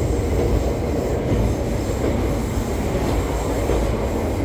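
Steady low rumble of a local train in motion, wheels and running gear on the rails, as heard inside the carriage.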